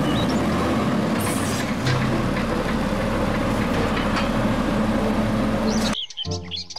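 Diesel engine of an automated side-loading garbage truck running under load while its hydraulic arm lifts and tips a wheeled trash cart, with a steady hum and a few clunks. It cuts off suddenly about six seconds in.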